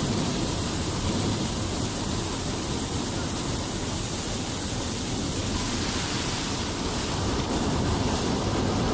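A herd of animals stampeding: a steady, even rush of noise from many hooves running.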